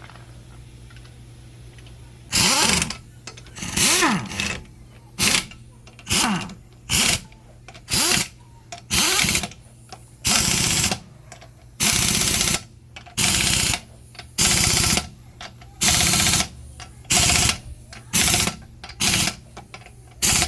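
Impact wrench running lug nuts onto a wheel in short repeated bursts: about fifteen bursts, starting a couple of seconds in, each from a fraction of a second to about a second long.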